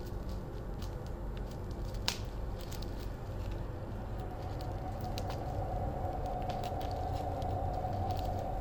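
Footsteps crunching on leaf litter and twigs on a forest floor, with scattered clicks and one sharp snap about two seconds in, over a low steady drone; a held higher tone joins the drone about halfway.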